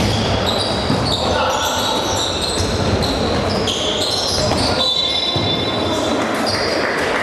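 Basketball game on an indoor hardwood court: the ball bouncing and sneakers squeaking in short high chirps, with voices echoing around the hall.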